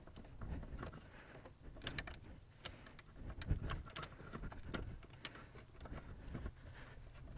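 Faint clicks, light knocks and rustling from hands handling the transmission shift cable and its plastic clip under the steering column.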